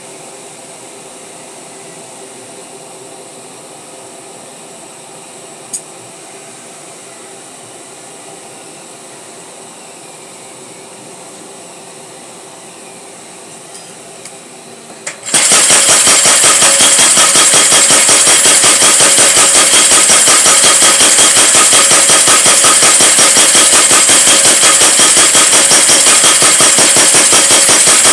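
Power hammer's motor running with a steady hum, then about halfway through the hammer engages and strikes in a rapid, continuous train of loud blows.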